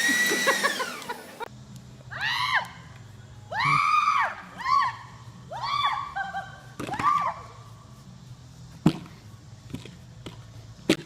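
A cat meowing about five times, each meow a drawn-out call that rises and then falls in pitch. A single sharp knock comes near the end.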